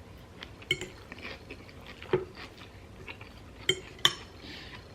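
A fork or other cutlery clinking against a dish while eating salad: about four sharp clinks with a few softer ticks between them.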